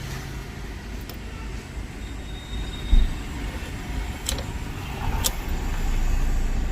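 Ford Fiesta diesel engine being cranked and catching, with a loud thump about three seconds in and a couple of sharp clicks, then running more loudly and steadily for the last second or two: the car starting after a crank-no-start fault.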